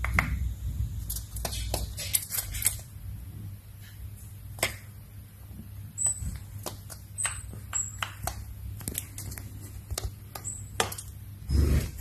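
Great tit pecking at a strip of tape and the wall with its beak: a quick run of sharp taps and ticks, then scattered single taps. From about six seconds in it gives several very short, high, thin calls.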